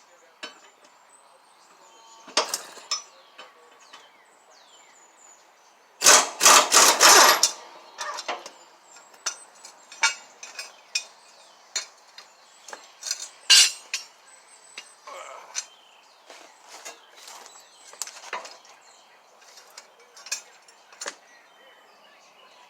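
Hand tools clinking and knocking on the steel mower blade and deck while the last blade is unbolted. There is a loud run of rapid knocks about six seconds in, lasting over a second, and scattered single clinks through the rest.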